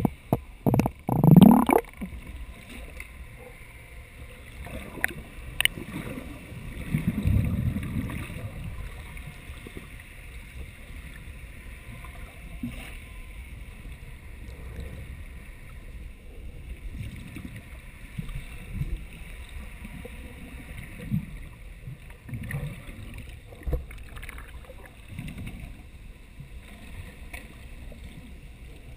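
Muffled underwater water noise picked up through a waterproof camera housing: a steady low wash with irregular low swishes and bumps from water moving around the housing, louder twice near the start and again about seven seconds in.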